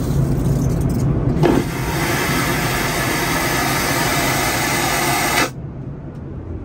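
An aircraft vacuum toilet is flushed: a loud rushing whoosh starts suddenly about a second and a half in, lasts about four seconds and cuts off sharply. The steady drone of the airliner cabin runs underneath.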